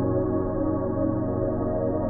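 Background ambient music: sustained, slowly shifting synthesizer-like chords.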